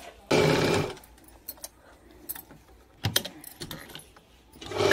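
Sewing machine stitching a seam in short runs: a half-second burst just after the start, a brief one about three seconds in, and another run starting near the end, with small clicks of handling between.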